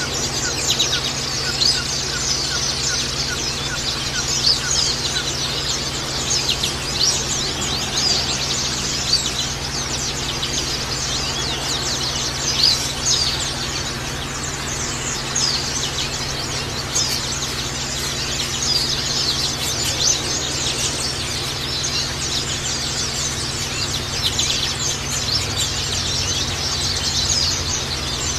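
White-eyes (pleci) chirping and twittering: many quick, high calls overlapping in a continuous busy chorus, the kind of recording played to provoke a caged white-eye into song.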